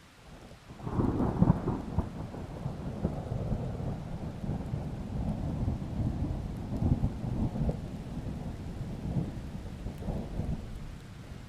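A thunderclap breaks about a second in and rolls on as a long rumble with uneven surges, easing off near the end. Light rain hisses underneath.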